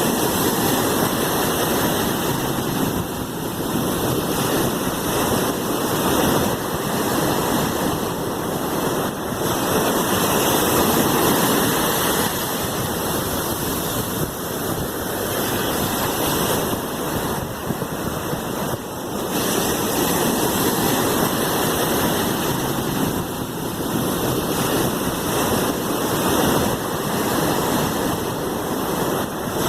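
Sea waves: a continuous rushing wash of surf that swells and eases gently every few seconds.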